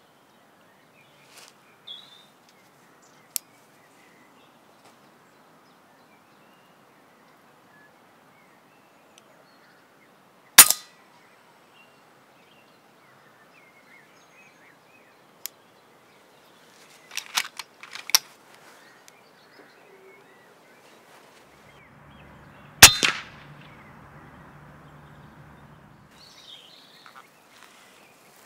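Two shots from an FX Impact MkII PCP air rifle, about twelve seconds apart. Each is a single sharp crack with a smaller sound a split second after it. A few quieter clicks fall between the two shots.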